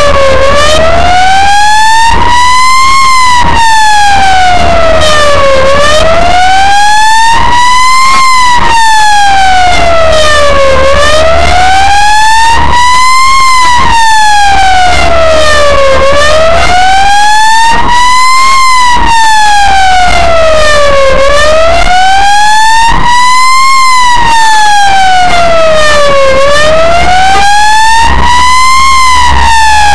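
Ambulance's own siren wailing loudly, its pitch sweeping slowly up and down, one full rise and fall about every five seconds, over a low engine rumble.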